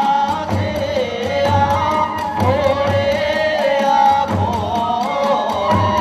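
Kagura hayashi, the festival ensemble that accompanies a kagura play: drums and small hand cymbals keep a steady beat of about three strokes a second under a winding flute melody.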